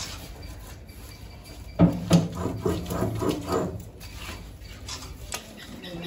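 Stone rubbing on stone: a hand grinding stone pushed back and forth over a flat grinding slab to grind a paste. The strokes grow stronger and come about three a second between two and four seconds in.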